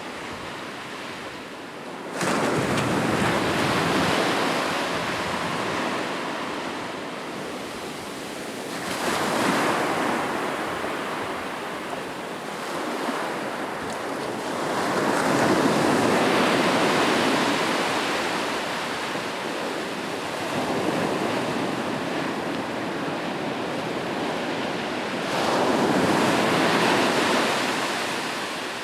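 Ocean surf breaking on a beach: waves crash and wash in about five times, each swell of hissing water rising and then fading back. The first breaks abruptly about two seconds in.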